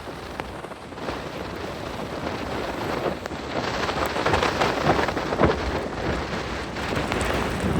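Strong wind buffeting the microphone, a rough, gusting noise that swells and eases.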